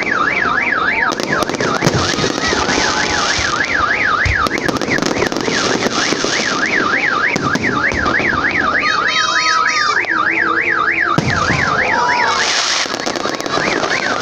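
Electronic car alarm siren warbling up and down in pitch about four times a second, with a few short breaks. Firework bangs and crackle sound behind it.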